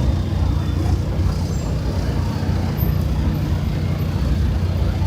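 Busy city street traffic: a steady low engine rumble from vehicles passing and idling close by, with a general haze of street noise.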